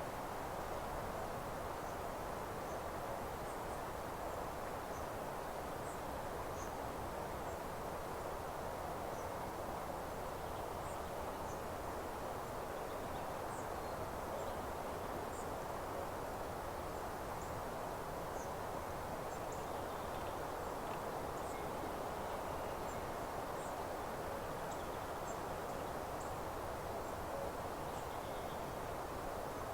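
Open-air meadow ambience: a steady rushing background hiss with faint, brief high-pitched chirps of small birds scattered throughout.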